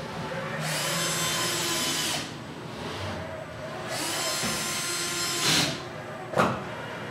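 Handheld electric screwdriver running in two bursts of about a second and a half, each spinning up to a steady whine and then stopping. A single sharp click follows near the end.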